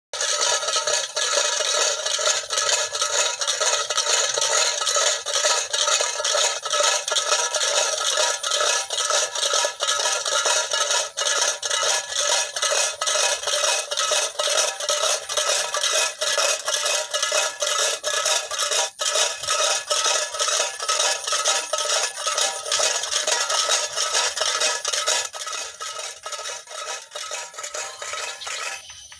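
Rows of tin-can bird scarers, old cans with small pebbles inside, rattling and clanking continuously as their rope is pulled to frighten rice-eating munias off a paddy field. The metallic clatter starts suddenly and eases somewhat near the end.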